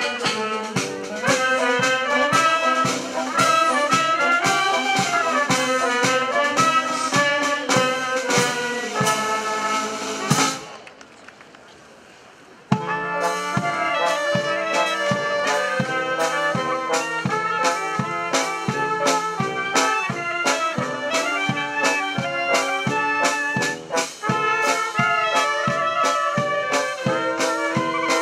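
Brass band playing a march, with trumpets and trombones over a steady drum beat. About ten seconds in the music falls away for about two seconds, then starts again abruptly.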